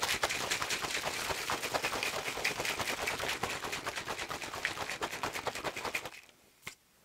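Plastic shaker cup of water and G Fuel powder being shaken hard: a fast run of rattling, sloshing knocks that stops abruptly about six seconds in, followed by one light knock.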